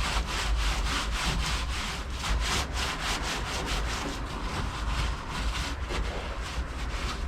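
Rapid back-and-forth rubbing on a car's bare steel floorpan, about four strokes a second: stripper-softened soundproofing glue being wiped off.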